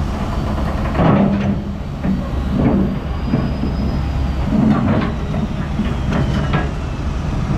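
Excavator's diesel engine running steadily under load while its steel bucket lifts the trailer's steel loading ramp, with a few metal clanks and scrapes.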